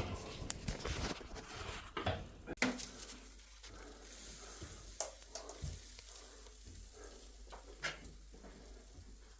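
Irregular scraping, clicking and rustling as a cable rod is pushed up through a cavity packed with loose polystyrene bead insulation, busier in the first few seconds and fainter towards the end.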